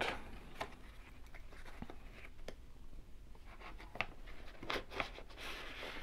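Light, scattered clicks and rubbing of a metal tubular lock pick being pulled out of its plastic case and handled, with a cluster of clicks about four to five seconds in.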